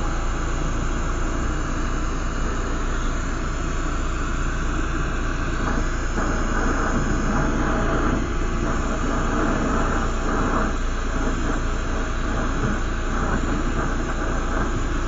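Lampworking bench torch burning with a steady hiss while a glass rod is melted in its flame.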